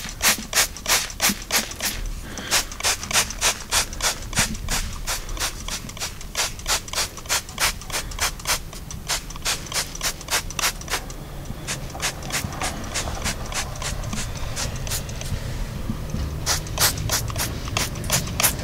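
Trigger spray bottle squirting leak-test solution onto gas line fittings in quick short sprays, about three a second, slackening for a few seconds past the middle and picking up again near the end. It is a soapy-water leak check of the joints, where bubbles would show escaping gas.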